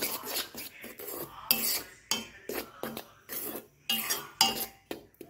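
Steel spoon scraping and clinking against the sides of a stainless steel bowl as it stirs dry rice flour, in irregular strokes.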